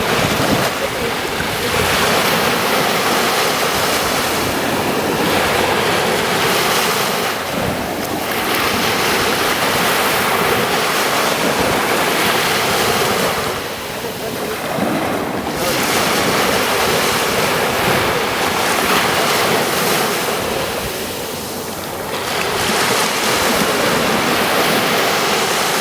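Ocean surf washing in on a beach in a continuous rush, easing briefly about every six or seven seconds as the waves draw back, with wind on the microphone.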